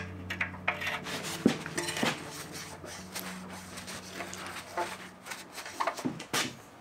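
Metal parts and tools clinking and knocking in an irregular string of sharp taps, with the loudest knocks about one and a half, two and six seconds in.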